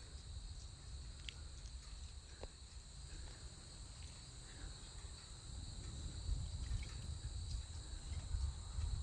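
Crickets trilling in a steady, high-pitched insect chorus, over a low rumble with a few faint ticks.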